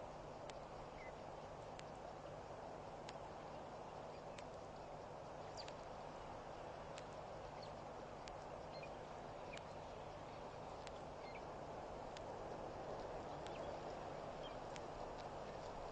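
Outdoor waterhole ambience: a steady low hiss with irregular sharp clicks and a few brief, high bird chirps scattered throughout.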